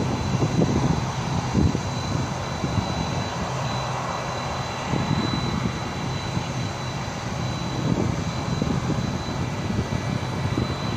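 Distant jet engines of a Boeing 767-300ER running steadily on the runway, a thin steady high whine, with wind gusting on the microphone.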